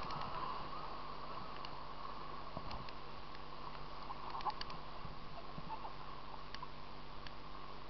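Whitewater of a mountain river rushing past at water level, a steady even rush with a few faint ticks scattered through it.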